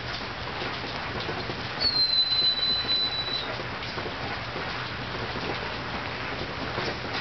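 Steady rain hiss on a wet yard. About two seconds in, a single thin, high whistling note dips slightly and then holds for about a second and a half.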